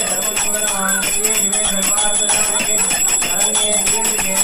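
A puja hand bell rung rapidly and without pause during aarti, fast strokes under a steady high ringing tone.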